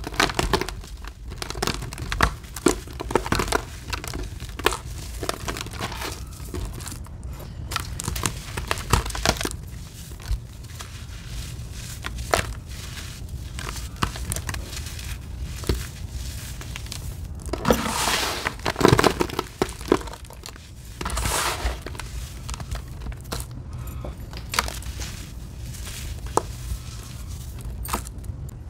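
Hands crumbling, squeezing and stirring a crumbly sand-and-clay mixture in a plastic basin: a steady run of soft crunches and gritty rustling, louder for a few seconds past the middle.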